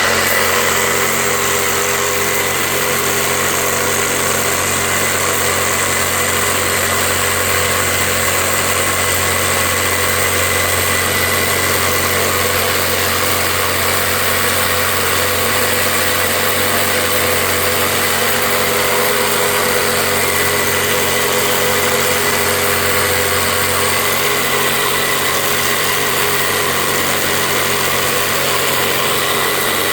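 Battery-powered cordless high-pressure washer running steadily: a whining motor and pump with a steady hiss across the highs, and a slight change in its low hum a little over three-quarters of the way through.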